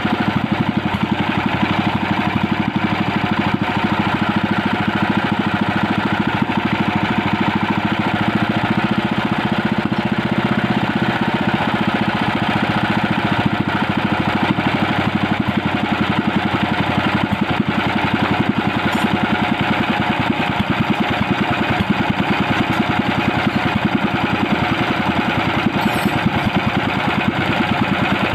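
Small engine running at a steady idle, with an even, rapid firing beat.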